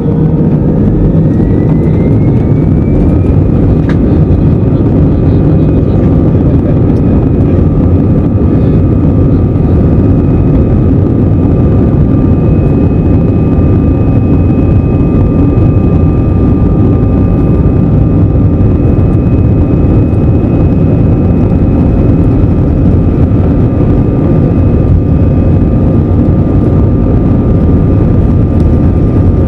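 Airbus A320 jet engines spooling up to takeoff power, heard from inside the cabin over the wing: a whine rises over the first three seconds and then holds steady, with a second steady tone joining about four seconds in, over a loud, even rumble of the takeoff roll.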